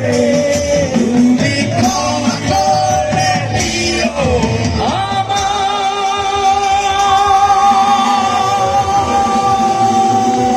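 Live rock band playing through the PA, with a male singer, electric guitar and drums. The melody bends for the first few seconds, then settles into one long held note from about halfway.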